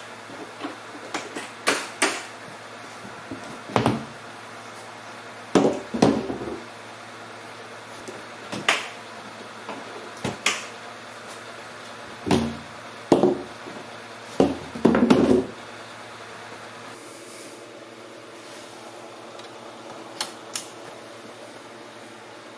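Road case latches being undone and its aluminium-edged cover lifted off: a series of sharp metallic clicks and clunks, some in quick pairs, over a steady low hum. After a quiet stretch there are two last clicks near the end.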